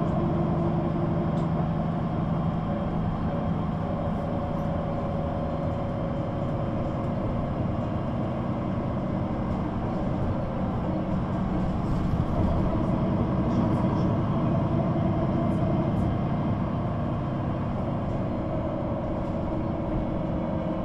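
Solaris Urbino 18 III articulated bus running, with its upright DAF diesel engine and Voith automatic gearbox. A steady engine note changes a few seconds in and grows a little louder around twelve seconds in.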